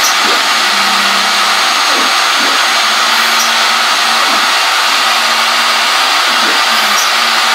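CNC router table making a fast dry run of square and circle toolpaths. There is a steady loud whirring, and under it the stepper motors whine, rising and falling in pitch every second or two as the gantry speeds up, slows and changes direction.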